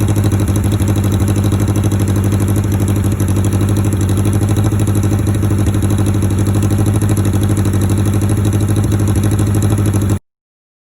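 1980 Kawasaki KZ650's air-cooled inline-four idling steadily through a loud aftermarket exhaust, with pod air filters. The sound cuts off abruptly about ten seconds in.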